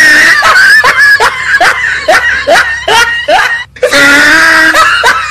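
A voice crying out in loud, rhythmic bursts, about two to three a second, then one long held cry near the end: an exaggerated, comic wailing outburst.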